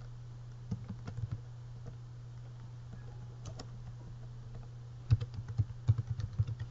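Typing on a computer keyboard: a few scattered keystrokes, then a quick run of keystrokes near the end. A steady low hum runs underneath.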